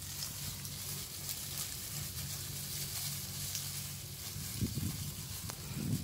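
Tortoises crawling over dry bamboo-leaf litter, with faint crackles through a steady high hiss. A couple of dull low thumps come near the end.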